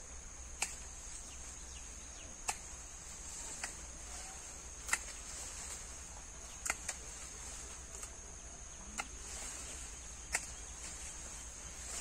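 Steady high-pitched drone of insects, with a sharp click or tap every second or two.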